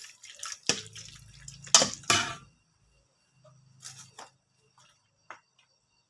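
Kitchen utensils clinking against a pot or bowl and liquid dripping, with a few sharp clicks in the first couple of seconds, then fainter taps.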